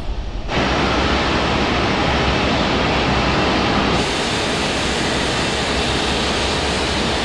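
Steady rushing jet-aircraft noise that starts abruptly about half a second in and turns brighter and hissier about four seconds in.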